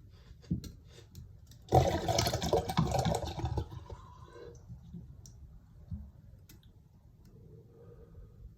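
A few small clicks, then a rush of water lasting about two seconds as water drains out of a homemade wine-bottle gravity bong.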